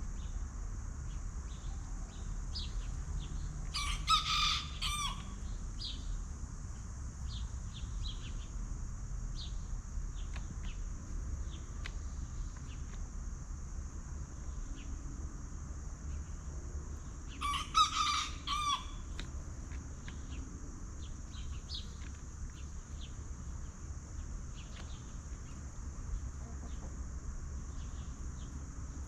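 Backyard chickens foraging: a rooster crows twice, about 4 seconds in and again about 18 seconds in, amid scattered short clucks and chirps, over a steady high drone.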